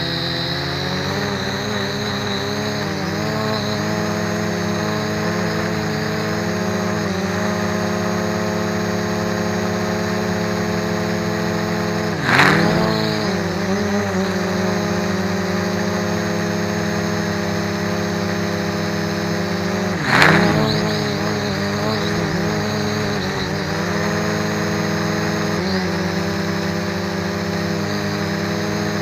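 MJX X400 V2 quadcopter's motors and propellers whining steadily, the pitch wavering up and down as the throttle shifts. About twelve and twenty seconds in there are two brief louder bursts where the pitch dips and recovers.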